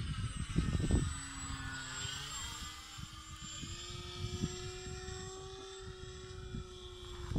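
Motor and propeller of a 45-inch RC model Bf 109 in flight, a steady whine whose pitch rises about two to three seconds in and then holds. A few low thumps come about a second in.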